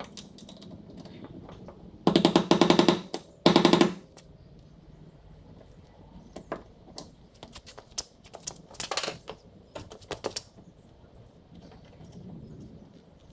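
Two short bursts of rapid ratcheting clicks, the second briefly after the first, followed by scattered light clicks and knocks of hand work on the shifter cables.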